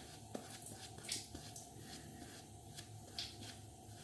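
Faint, short scraping strokes of a Feather Artist Club SS replaceable-blade straight razor cutting through lather and stubble, coming irregularly.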